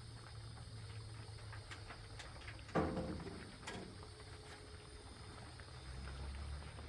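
A single sharp knock with a short ringing decay about three seconds in, then a fainter click about a second later, over a low steady hum.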